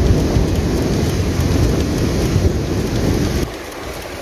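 Wind buffeting the microphone: a loud, choppy low rumble that drops off sharply about three and a half seconds in.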